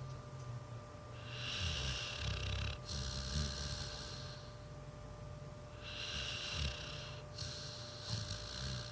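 Pit bull snoring in her sleep: two slow breaths about five seconds apart, each a low rattle with a hiss of air.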